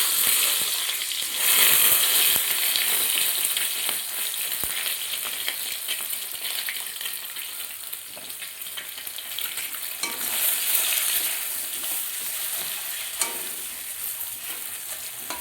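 Boiled eggs sizzling in hot oil in a pan: a loud, hissing sizzle that eases off gradually, flaring up again about a second and a half in and around ten seconds in.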